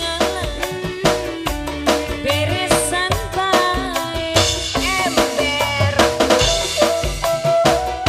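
Singa depok accompaniment music: a band with drum kit and hand drums beating fast, steady strokes under a melodic lead line that slides and wavers in pitch.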